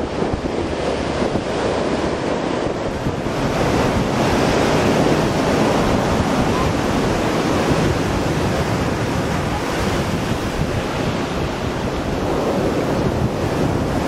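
Heavy ocean surf breaking and washing up a sandy beach, a steady rushing wash of noise. Wind buffets the microphone.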